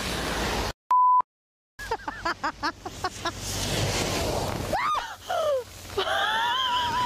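Steady rain, broken by a short, high electronic beep about a second in. Then a vehicle drives through deep standing water at the roadside and throws a loud sheet of spray over a woman standing beside the road. She gasps and screams through the spray and after it, her voice rising.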